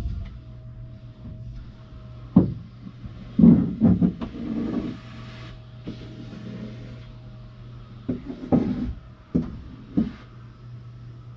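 Vacuum cleaner running in the next room, heard muffled through the wall as a steady low hum, with a series of thumps and knocks at intervals.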